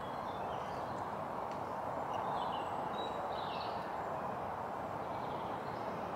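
Faint bird chirps over a steady background hiss of open-air ambience.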